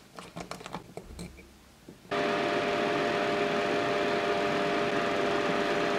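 Faint clicks of a screwdriver and pliers working on a circuit board. About two seconds in, a steady fan-like noise with a hum of a few steady tones starts abruptly.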